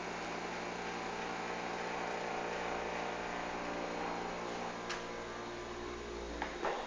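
Brastemp Active refrigerator running with a steady hum of several low tones over a hiss, which the owner finds abnormally loud, "like a tractor in the kitchen". Near the end the lowest hum stops, with a couple of short knocks.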